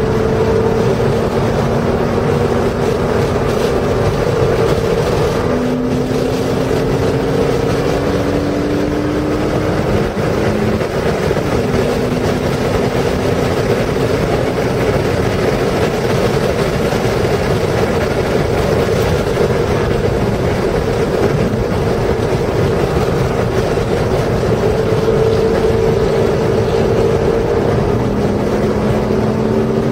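Porsche engine under hard acceleration on a racetrack, heard from inside the car. Its note climbs in pitch and breaks off at several gear changes, over steady wind and tyre noise.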